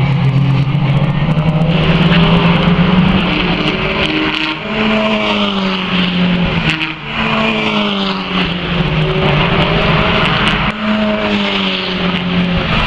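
Renault Clio Cup race car's turbocharged four-cylinder engine running hard on track, its pitch shifting in steps with short dips about three times as it changes gear.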